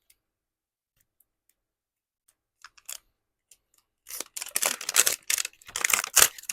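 Packaging being torn open and crinkled by hand: a few faint ticks, then from about four seconds in a run of loud rustling and ripping.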